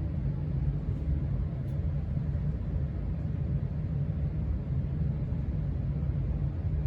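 Steady low rumble of a building HVAC system running, loud and unchanging, with no distinct sounds rising above it.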